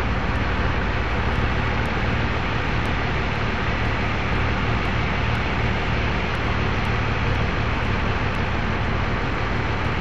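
Cummins diesel engine of a Texoma Taurus truck-mounted drilling rig running at a steady speed, a low even hum under a dense mechanical noise.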